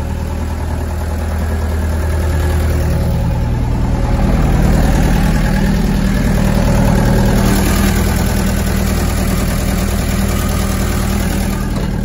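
Gehl skid steer's engine running at idle just after being started, a steady low drone that grows a little louder a few seconds in.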